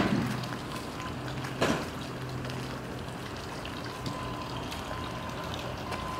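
Steady background hiss with a low hum, broken by one short knock about one and a half seconds in.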